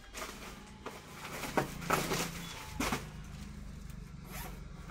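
Handling noise from a saree being taken out and shown: a few brief rustles and knocks, the loudest near the middle, over a low steady hum.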